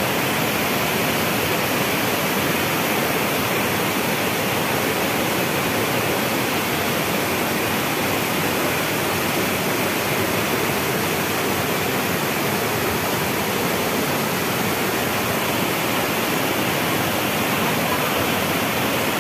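Rain-swollen water cascading down over rock slabs and boulders: a steady, unbroken rush of white water.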